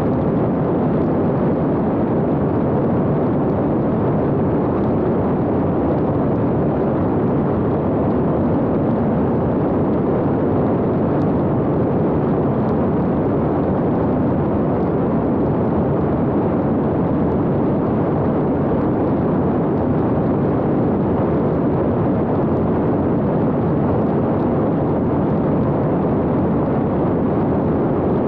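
X-UAV Talon fixed-wing drone in steady cruise, heard on its onboard camera: a constant, even rush of airflow and propeller noise that does not change in pitch or loudness.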